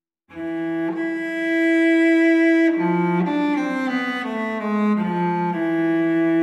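Slow music on a bowed string instrument, cello-like. After a moment's silence it enters on a long held note, steps down through a short falling run of notes about three seconds in, and settles on another long held note.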